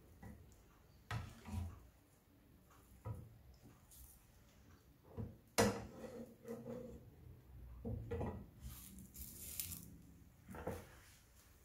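Plastic slotted spatula and fingers handling a filled crepe in a non-stick frying pan: soft scattered taps and scrapes against the pan, the sharpest click about five and a half seconds in.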